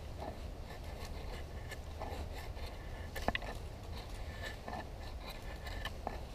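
Carbon-steel (80CrV2) bushcraft knife blade shaving long curls down a green stick: soft scraping strokes, one every second or two, with a sharp click about three seconds in.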